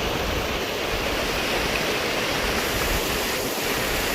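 River water rushing over a waterfall: a steady, even rush.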